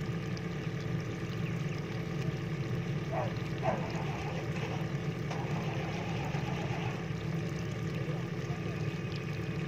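Heavy diesel engine running steadily, a low even hum with no revving, with a few short faint high calls about three to four seconds in.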